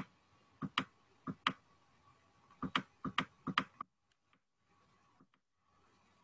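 Sharp, short clicks and taps from the pen input as letters are written stroke by stroke, about a dozen of them in the first four seconds, then fainter and sparser. A faint steady hum sits underneath.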